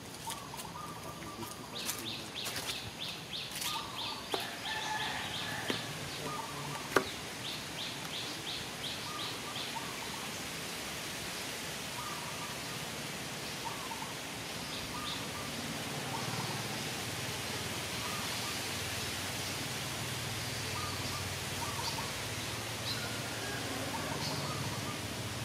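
Outdoor forest ambience with birds calling: a rapid run of high chirps for several seconds early on and short, scattered lower calls. There is one sharp click about seven seconds in, and a steady hiss that grows louder in the second half.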